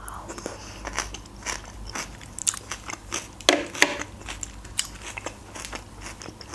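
Close-miked mouth sounds of a person chewing a forkful of salad: a run of small irregular crunches and wet clicks, with a couple of louder ones about three and a half seconds in.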